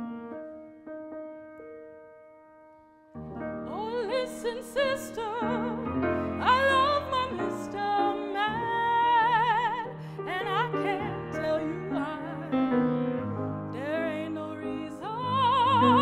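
Piano chords ringing and fading. About three seconds in, a woman's operatic voice comes in with a wide vibrato, singing over the piano accompaniment.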